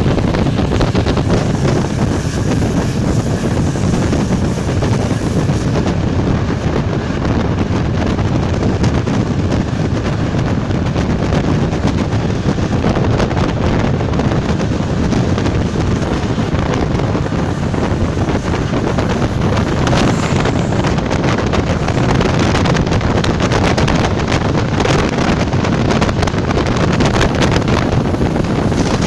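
ČD class 460 electric multiple unit running at speed: a loud, steady rush of wheel, track and wind noise, with wind buffeting the microphone.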